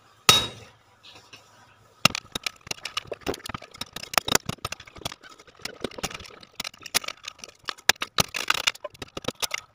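A hammer striking the old spokes of a 70cc motorcycle wheel to cut them off the hub: one sharp metallic blow, then from about two seconds in a fast, irregular run of metal strikes and clinks.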